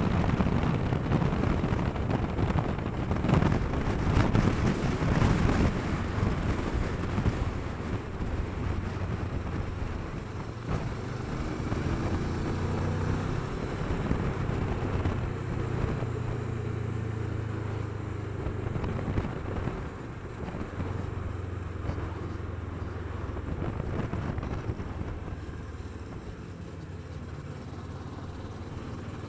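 Kawasaki Versys 650's parallel-twin engine running at a steady cruise, with wind rushing over the microphone. The wind is loudest for the first several seconds, then eases, leaving the engine's even drone more prominent.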